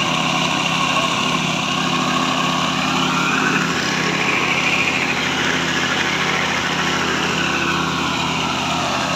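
Petrol plate compactor running steadily, its small single-cylinder engine driving the vibrating plate over interlocking concrete paving blocks to bed them in after laying.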